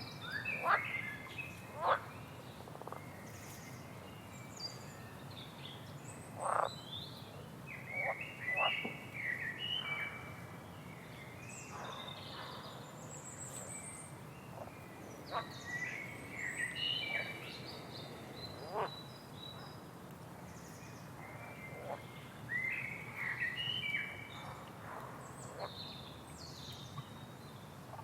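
Frogs and birds calling over a steady low background hiss. The short chirps and calls come in clusters, with a fast high trill about halfway through.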